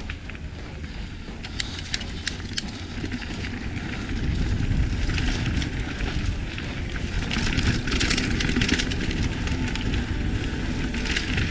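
Wind rushing over a moving microphone, with scattered crackles and clicks over a low rumble. It gets louder about four seconds in.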